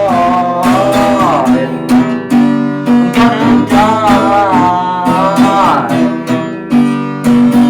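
Strummed acoustic guitar song, with a voice singing two long, wavering held notes over the chords.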